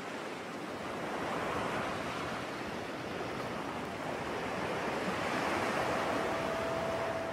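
Steady wash of sea surf, waves breaking in a continuous hiss that swells slightly. A single held musical note comes in near the end.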